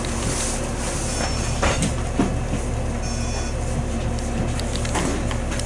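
Ride inside a 2001 New Flyer D40LF diesel city bus under way: steady engine drone and road noise, with scattered rattles and knocks from the bus body, the loudest about two seconds in.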